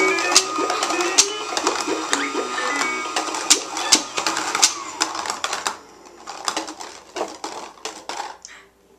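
Small plastic balls clattering and rattling as they roll down a plastic spiral ball-ramp toy, with many quick clicks. A short electronic tune of stepped notes plays over it for the first few seconds. The clatter thins out and fades near the end.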